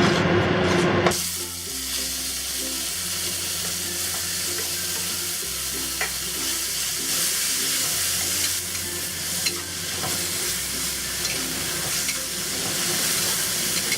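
Diced chicken thigh frying in hot oil in a pan at medium-high heat: a steady sizzle while it is stirred, with a few sharp clicks of the utensil against the pan.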